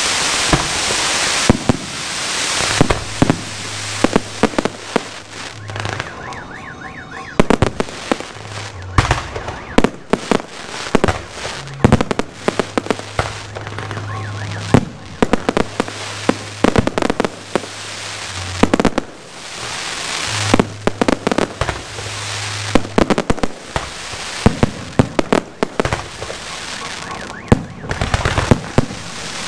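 Aerial fireworks display: a rapid, irregular string of sharp bangs as shells burst overhead. Stretches of loud hissing come near the start and again near the end, as ground-level fireworks fire.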